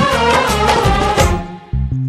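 Instrumental interlude of a Bollywood film song: a full instrumental backing with a regular beat that thins out and dips briefly near the end, leaving only a few low notes.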